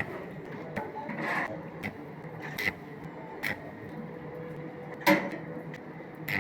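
Irregular sharp metal knocks and clanks, about seven of them, the loudest about five seconds in, as metal pieces are handled and tapped into place, over a faint steady hum.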